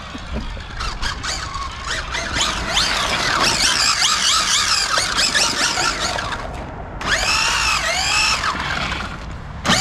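Brushless electric motor and drivetrain of a converted 1/5-scale RC truck whining under throttle, running on 6S: the pitch swoops up and down again and again as the throttle is worked, drops out briefly about seven seconds in, then rises and falls a few more times.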